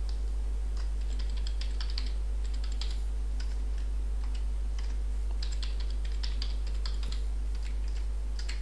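Typing on a computer keyboard: several bursts of quick keystrokes with short pauses between them, over a steady low hum.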